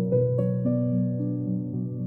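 Background music: soft instrumental with gently plucked or keyboard notes over a repeating low figure.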